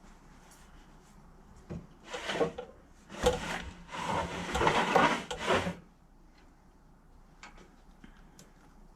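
A short scrape, then a longer spell of scraping about two and a half seconds long.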